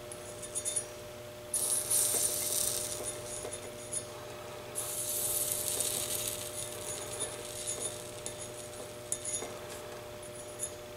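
Rosin flux sizzling as a hot soldering iron re-tins the pins of a 3-500Z transmitting tube, in two spells of hiss from about a second and a half in, with light clicks of the solder wire and iron tip against the pins. A faint steady hum runs underneath.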